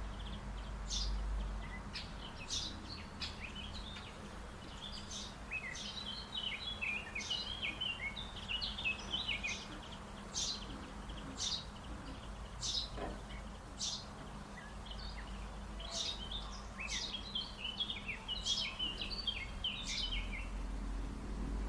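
Small songbirds singing: sharp high chirps every second or two with quick twittering phrases between them, over a low steady background rumble.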